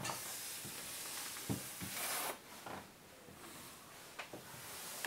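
Handling noise and footsteps: a rustling hiss that cuts off suddenly about two seconds in, with a few soft thumps on a wooden floor and a couple of light knocks.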